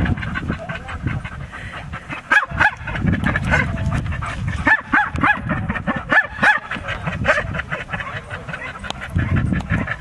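Dog barking in short, high yips that come in clusters about two and a half, five and six and a half seconds in, over a steady low rumble.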